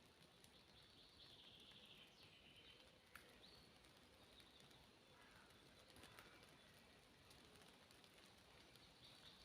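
Faint forest ambience in which a songbird sings a short trilled phrase about a second in and again near the end. Two sharp ticks, like drops landing, fall about three seconds apart.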